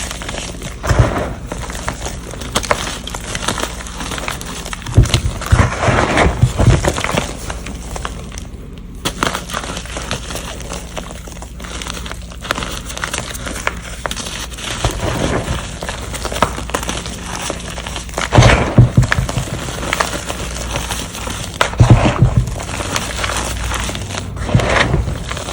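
Air-dried gym chalk reforms being crushed and crumbled, with repeated dry crunches and crackles. Heavier crushes land about a quarter of the way in, two-thirds of the way in and again a little later, each with a dull thud.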